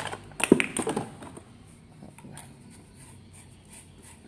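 Cardboard bulb box being handled and a plastic LED emergency bulb slid out of it: a cluster of sharp clicks and rustles in the first second, then faint light handling ticks.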